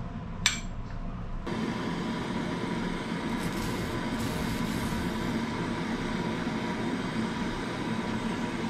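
A sharp click, then about a second later a handheld gas torch on a butane canister lights and its flame hisses steadily while it heats a brass pipe fitting.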